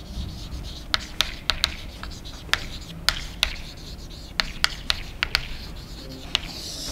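Chalk writing on a blackboard: about a dozen sharp, irregular taps of the chalk against the board, with light scratching between them.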